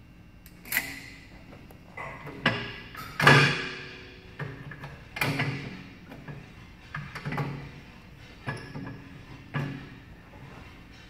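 Gym equipment clanking: about ten irregular metallic knocks and thuds, each with a short ring, the loudest about three seconds in.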